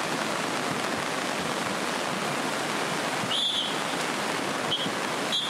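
The Kali Gandaki River in flood: fast, muddy, turbulent water rushing with a steady, even noise. A few short high chirps come about three and a half seconds in and again near the end.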